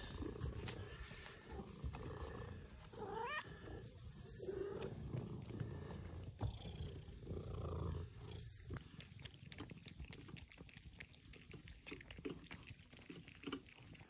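Domestic cats purring up close, with a short rising meow about three seconds in. After about eight seconds the purring gives way to light taps and rustles.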